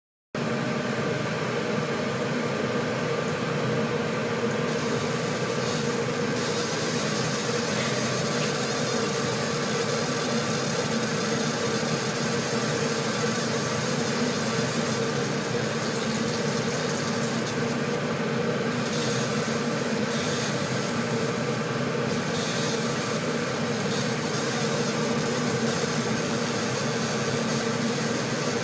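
A 30 W fiber laser marker running with a steady machine hum. From about five seconds in, a high hiss comes in as the beam engraves the black Glock slide, dropping out briefly a few times between passes.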